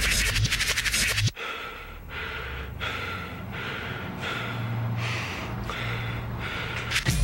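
Dance music track cuts off abruptly about a second in. A break follows of about eight rhythmic breathy exhalations, each under a second apart, over a low steady hum. The music comes back in at the end.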